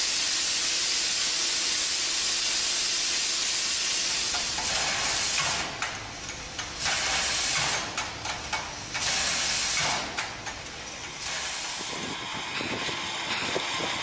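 Steam locomotive letting off steam: a steady hiss for the first four seconds or so, then shorter bursts of hiss with quieter gaps between them, and a few light knocks near the end.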